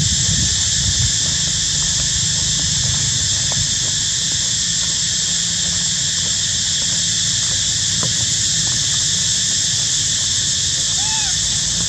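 A steady, high-pitched insect drone, typical of a cicada chorus, with one short rising-and-falling chirp near the end.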